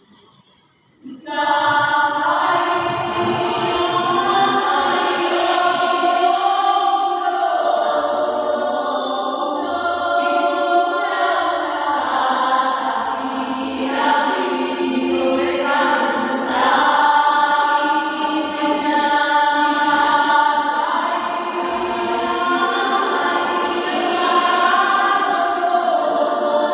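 Choir singing in parts, coming in about a second in after a brief hush and carrying on steadily.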